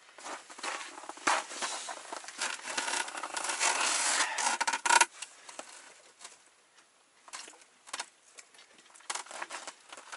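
Rustling of a padded winter jacket and clicking and scraping of small fishing gear being handled on the ice. The rustling and scraping are densest in the first half and loudest about five seconds in, then give way to a few scattered clicks.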